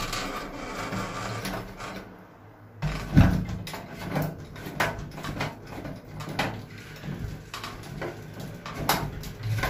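Round metal doorknob lockset being handled and fitted on a wooden door: scattered clicks and knocks of metal parts, with one louder knock about three seconds in.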